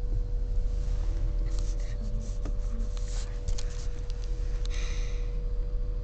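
Car cabin rumble from the engine and road, heard from a passenger seat, with a steady faint tone over it. A few light clicks, and a soft breathy hiss about five seconds in.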